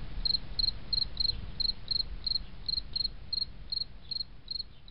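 A cricket chirping steadily, about three short chirps a second, over a low background rumble. It fades out near the end.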